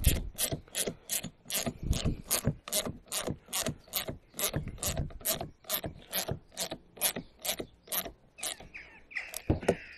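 Small socket ratchet clicking steadily, about three clicks a second, as it winds an M10 nylock nut tight on a bolt; the clicking stops near the end.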